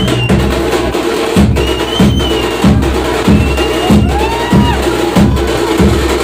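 Drums pounding a steady, loud beat for a tiger-costume street dance, about three heavy strokes every two seconds, with high, sliding whistle-like tones over them now and then.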